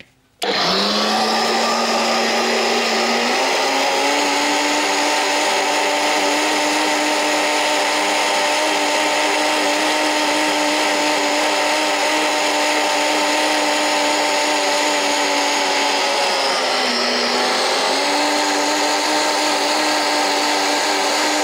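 Countertop blender running at high speed, puréeing boiled mushrooms. The motor starts about half a second in and its pitch climbs after a few seconds. Near the end it dips briefly, then climbs back.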